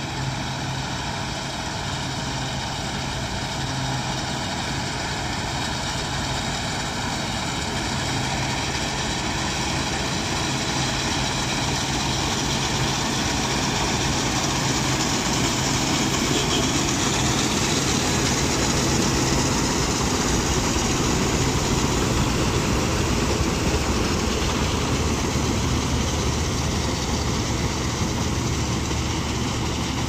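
Kola Rubin combine harvester running while it harvests wheat: a steady engine drone with its machinery. It grows louder as the machine passes close about halfway through, then eases slightly as it moves away.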